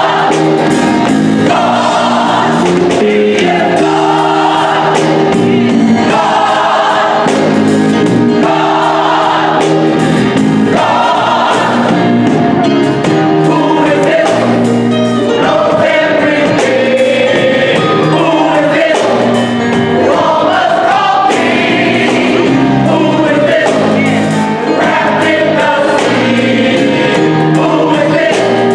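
Mixed gospel choir of men and women singing a song, holding full chords without a break.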